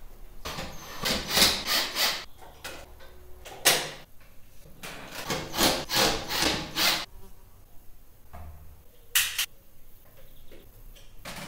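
Cordless drill-driver run in short bursts, driving screws to fix a round light fixture to the ceiling, with handling knocks in between.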